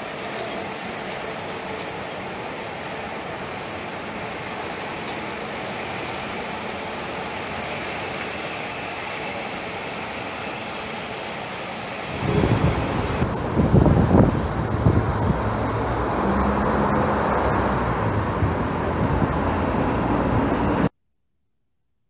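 Busy street traffic with buses running: a steady traffic hum under a high steady whine, then, after a cut about twelve seconds in, louder low engine and traffic rumble, which stops suddenly near the end.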